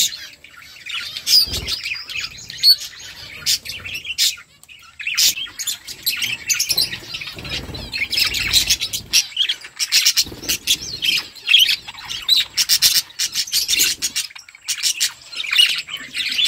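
A flock of budgerigars chirping and chattering in quick, overlapping calls, with a few soft low thuds among them.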